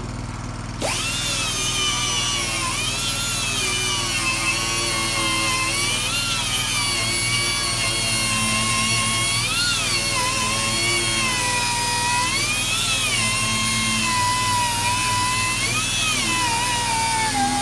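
Pneumatic grinder starting about a second in and whining steadily, its pitch dipping every few seconds as it bears on the metal, over a steady low hum.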